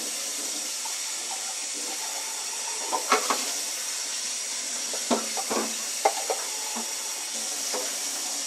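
Kitchen sink tap running in a steady hiss while a measuring cup is rinsed under it, with a few light knocks of the cup about three seconds in and again around five to six seconds.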